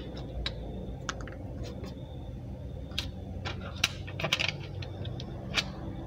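Scattered small plastic clicks and taps from hands handling parts inside an opened laptop, with the sharpest click a little before four seconds in and a quick run of clicks just after it. A steady low hum runs underneath.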